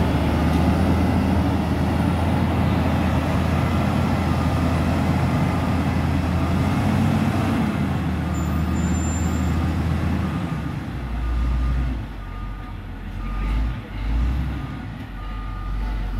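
Caterpillar 140K motor grader's diesel engine running under load as its blade spreads cold-mix asphalt. It is loud for about ten seconds, then fades as the machine moves off. A reversing alarm beeps steadily about twice a second.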